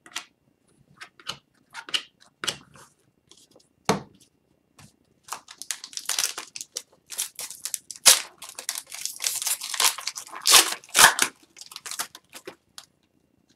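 Trading cards being shuffled with a few light clicks, then an Upper Deck Series 1 hockey card pack torn open from about five seconds in: a run of crackling, crinkling tears of the wrapper.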